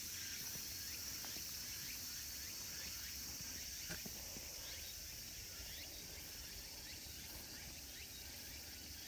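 Steady high-pitched insect chorus with short, quick chirps repeating about twice a second, and a single faint knock about four seconds in.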